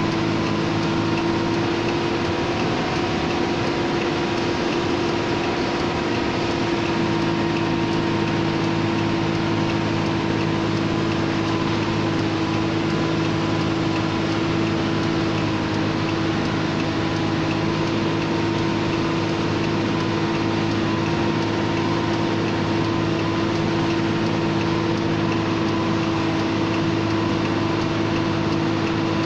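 Hino truck's diesel engine pulling hard in first gear up a steep mountain road, heard from inside the cab as a constant drone that holds one pitch throughout.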